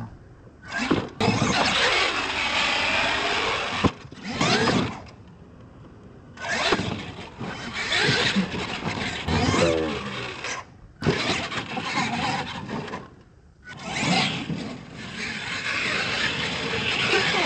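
Radio-controlled monster truck driving hard on a dirt track: its motor and drivetrain whine, rising and falling in pitch with each throttle burst, with the noise of tyres on dirt. There are a few short, quieter pauses between runs at the throttle.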